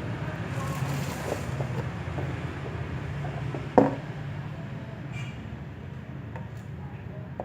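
Steady low hum with a few light handling taps, and one sharp click or knock near the middle.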